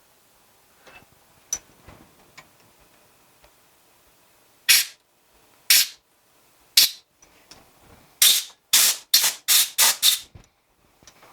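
Compressed-air blow gun firing nine short hissing blasts: three about a second apart, then six in quick succession. This is typical of blowing metal chips out of freshly tapped threads.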